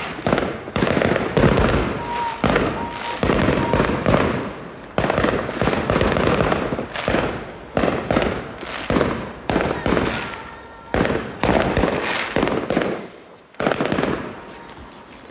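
Fireworks going off in quick succession: a long string of sharp bangs, each trailing off, thinning out near the end.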